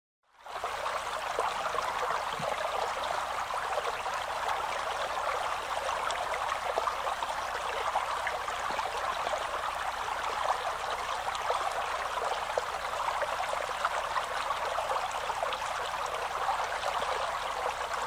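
Shallow stream running over its bed, a steady trickling flow of water that starts a moment in.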